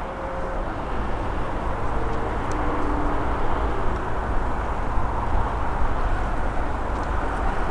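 Jet airliner engine noise: a steady rumble with a faint whine, growing slightly louder.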